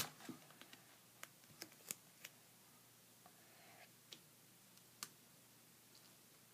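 Near silence broken by faint, scattered ticks and a brief soft crinkle as a strip of duct tape is handled between the fingers.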